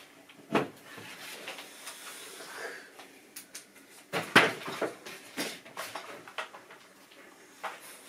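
Scattered knocks, clicks and rustling of someone handling things in a small room, the loudest knock about four seconds in.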